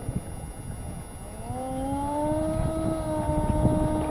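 Twin electric ducted fans of an RC A-10 model spooling up about a second and a half in, then holding a steady whine as the plane taxis. The whine sits over a low rumble.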